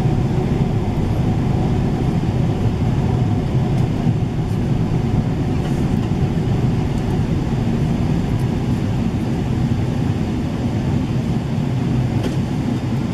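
Steady low roar of airflow and the GE90 engines heard inside the cabin of a Boeing 777-300ER in descent, with the wing spoilers raised as speedbrakes.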